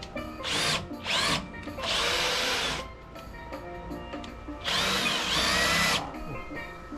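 Power drill driving long wood screws in four short runs, its motor whine rising and falling as each screw goes in, over faint background music.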